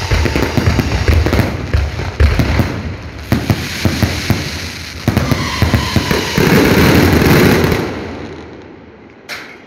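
Fireworks display: rapid bangs of aerial shells bursting over continuous crackling, building to a loud, dense barrage about six to eight seconds in, then dying away with one last pop near the end.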